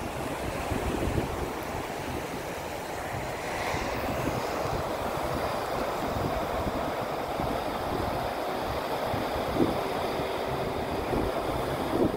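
Surf washing onto a sandy beach in a steady wash, with wind buffeting the microphone and a couple of brief bumps near the end.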